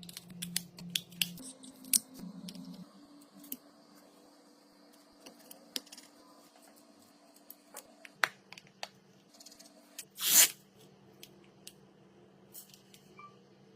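Small hand tools clicking and scraping against a phone being repaired: many scattered sharp clicks, and one louder rasping sound lasting about half a second, about ten seconds in. A faint steady hum runs underneath.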